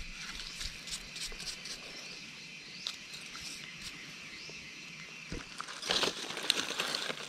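Dry leaf litter rustling and crackling with scattered small clicks, growing louder about six seconds in, over a steady high drone of forest insects.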